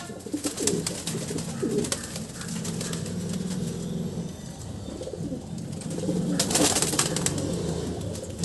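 Fancy pigeons in a wire-mesh loft cooing steadily, with scattered wing flaps and scuffling. A louder flurry of wing claps and clatter comes about six and a half seconds in.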